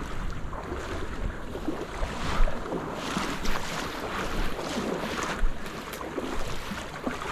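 Wind buffeting the microphone, with irregular splashing of water as a retriever brings a shot duck in.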